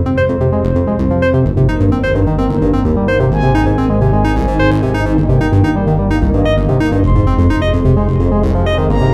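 Samsung Galaxy ringtone: an electronic synthesizer melody of short plucked notes over a sustained bass, playing steadily.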